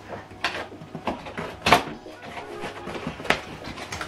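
Cardboard box being handled: a few separate knocks and scrapes of cardboard, the loudest a little under two seconds in.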